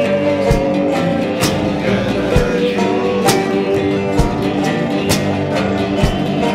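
Background music: a plucked-guitar tune with a steady beat.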